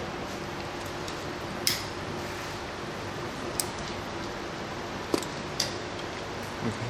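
A few short, sharp clicks from tools and wire being handled during work on a soldered wire joint, over a steady background hiss.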